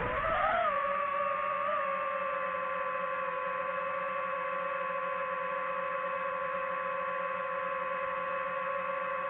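DJI FPV drone's motors and propellers whining. The pitch wavers and rises briefly in the first second or two, then holds steady.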